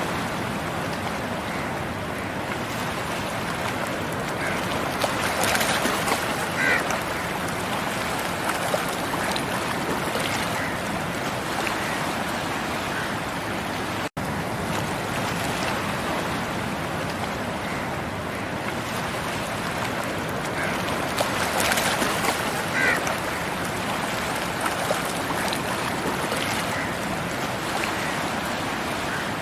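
Sea waves breaking and washing up a beach: a steady rush of surf that swells louder twice, about a fifth of the way in and again around three quarters through. A split-second dropout about halfway through.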